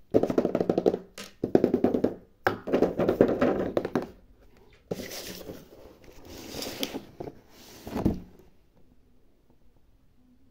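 Hands handling a cardboard toy box: rapid tapping and rubbing over the first four seconds, then scratchy rustling, and a single thump about eight seconds in.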